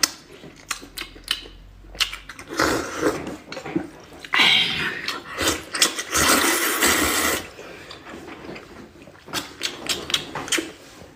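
A person eating close to the microphone: scattered short clicks and smacks, with a long, loud slurp from about four to seven seconds in.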